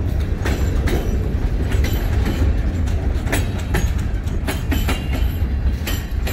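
Freight train of boxcars and double-stacked container cars rolling slowly past close by. A steady low rumble, with irregular sharp clicks and clanks of the wheels over the rail joints.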